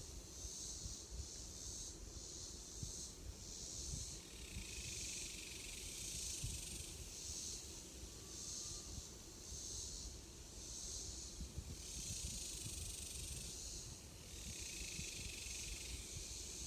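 A chorus of insects buzzing high-pitched in pulsing waves, with a second, lower buzz joining in twice, over a low rumble.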